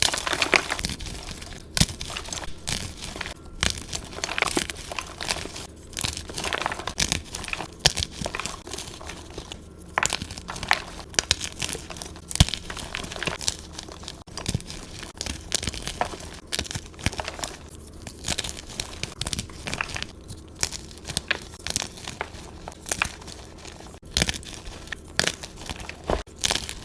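Gym chalk (magnesium carbonate) being crushed and crumbled by hand, a dense run of irregular crunches and crackles with sharper snaps scattered through.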